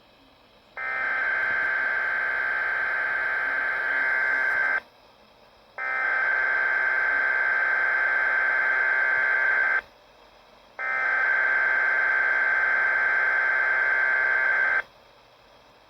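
Weather Radio Canada alert data header for a Required Weekly Test: three long bursts of buzzy, warbling data tones, each about four seconds, with about a second of silence between them. It is the digital code that switches on alert receivers.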